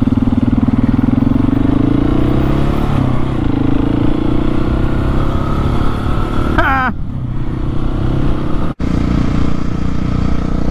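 Motorcycle engine running as the bike rides off, its revs climbing steadily over the first few seconds, with road and wind noise. About two-thirds of the way through a short wavering tone comes in. A moment later the sound drops out for an instant and a motorcycle engine runs steadily again.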